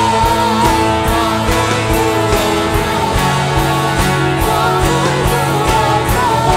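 Live gospel worship band playing a hymn: electric guitar, acoustic guitar and electric bass over a steady drum-kit beat, with a sung melody held above them.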